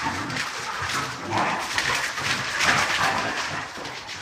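Several excited dogs moving about on a bare hard floor, with irregular scuffling and short clicks.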